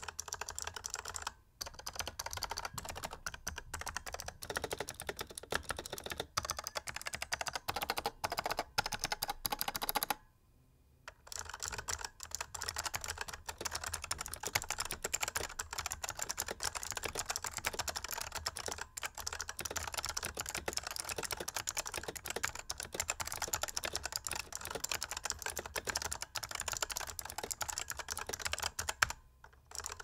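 Rapid typing on a Razer Huntsman Elite keyboard with Razer's clicky optical (purple) switches: a dense run of sharp key clicks, broken by a pause of about a second some ten seconds in.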